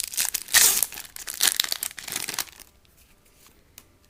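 Foil wrapper of a 1998 Topps Tek baseball card pack crinkling and being torn open. The crackling is dense for about two and a half seconds, then drops to faint handling.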